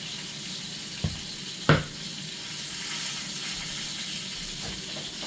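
Chicken sizzling in a cast iron skillet, a steady hiss, with two knocks about a second in and just under two seconds in, the second louder.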